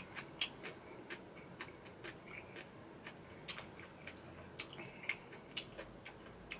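A person chewing food with the mouth closed, close to the microphone: soft, irregular wet clicks and smacks, a few every second.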